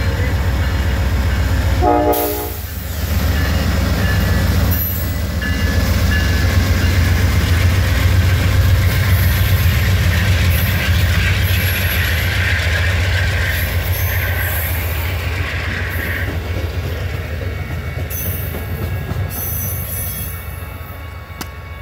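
Amtrak passenger train passing, led by a GE P42DC diesel locomotive: a deep engine rumble, a short horn blast about two seconds in, then the coaches rolling by with wheel and rail noise that fades toward the end.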